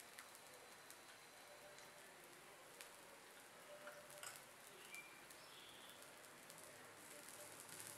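Faint sizzling and crackling of adai batter frying in oil on a flat griddle, a steady low hiss with scattered small pops.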